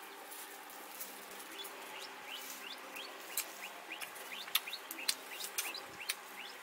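Small birds chirping, many short upward-sliding chirps from about a second and a half in, with a few sharp clicks among them.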